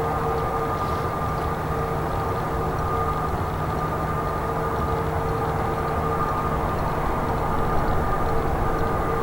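Airbus A320neo's CFM LEAP-1A turbofan engines running steadily: a constant rumble and hiss with a steady whine at two pitches.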